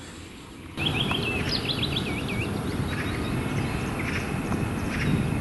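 Several small songbirds singing and chirping over a steady low background noise. The whole sound gets suddenly louder just under a second in.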